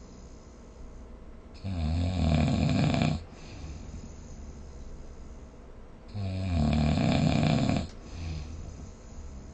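A person snoring: two loud snores, each about a second and a half long and about four and a half seconds apart, with much quieter breathing noise between them.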